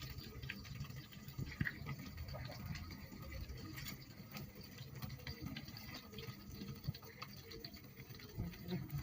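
Faint liquid pattering with scattered light clicks, from lotia fish bhuna cooking in the pan.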